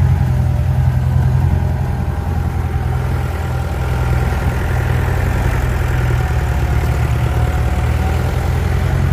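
Jeep engine running as it drives up a rough off-road track, heard from inside the cabin: a loud, steady low drone with a fainter wavering whine above it.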